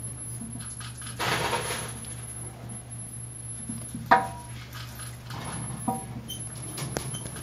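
Pet mouse moving about in wood-shaving bedding: a rustle of shavings about a second in, then a few sharp clicks, the loudest about four seconds in, over a steady low hum.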